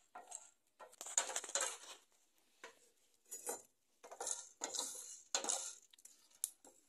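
Wooden spoon stirring and scraping whole cloves and black peppercorns as they dry-toast in a small enamel pan, in short irregular strokes with the spices rattling against the metal.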